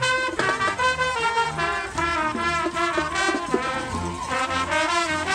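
Several trumpets playing a brisk tune together in short, rhythmic notes.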